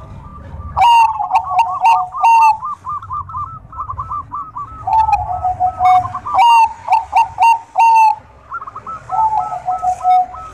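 Bangkok-type perkutut (zebra dove) cooing: three bouts of rapid, short staccato notes, some of them loud.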